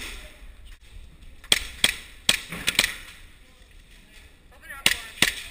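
Airsoft guns firing single shots: about five sharp cracks between one and a half and three seconds in, then two more near the end.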